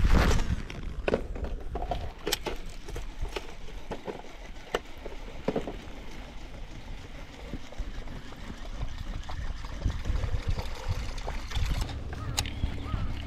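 Water lapping and gurgling against a small fishing boat's hull, with scattered sharp knocks and clicks. A low steady hum sets in near the end, just after a sharp click.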